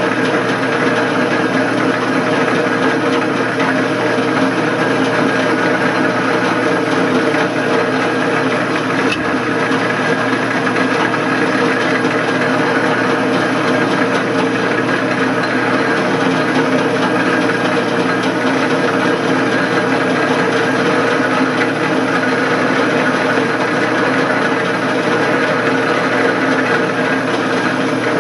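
Atlas lathe running in back gear and turning down aluminum bar stock: a steady machine drone and gear whine made of several held tones, unchanging in level.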